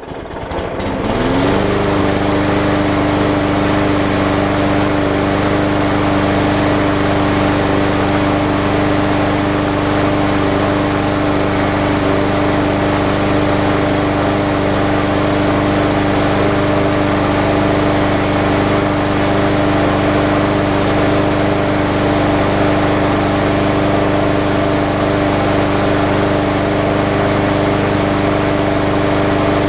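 A Hyper Tough push mower's Briggs & Stratton overhead-valve engine catching and coming up to speed over about the first second and a half, then running steadily. It is running cleanly now that it has burned through the water left in its fuel.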